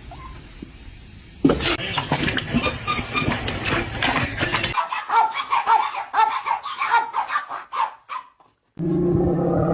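Dog noises and a person laughing in short repeated bursts over clattering and knocking; the sound cuts off abruptly, and a steady held pitched sound starts near the end.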